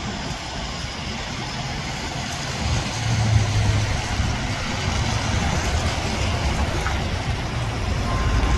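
Articulated MAN city bus driving past close by on a wet street, its low hum and tyre noise swelling about three seconds in over steady traffic noise.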